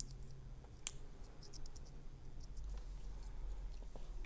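Small, light metallic clicks and scrapes of a thin steel shim being worked into a lock cylinder, with one sharper click about a second in and a few fainter ones just after.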